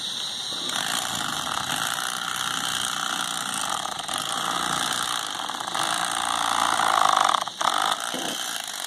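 Rapala corded electric fillet knife running steadily, its reciprocating double blades sawing through a catfish head to free the cheek meat. The motor cuts out for a moment about seven and a half seconds in.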